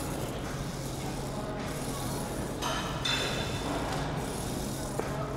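Gym room ambience: a steady low hum with faint murmur, a short hissing, clinking burst about two and a half seconds in and a single sharp click near the end.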